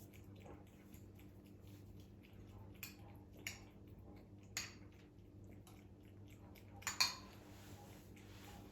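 Kitchen handling sounds: light clinks and taps of dishes and utensils, with a few sharper knocks, the loudest about seven seconds in, over a steady low hum.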